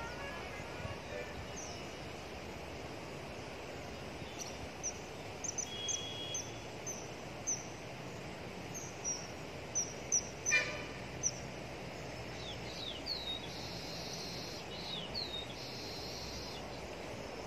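Small birds chirping: many short, high notes that slide downward, most frequent from about a quarter to two-thirds of the way through, over steady background noise.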